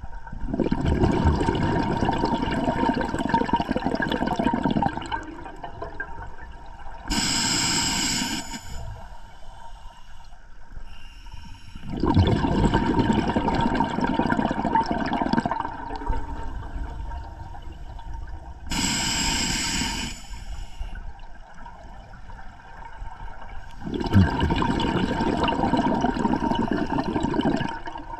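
Scuba diver breathing through a regulator underwater: three long rushes of exhaled bubbles about every eleven to twelve seconds, each followed a few seconds later by a short, high hiss of inhalation.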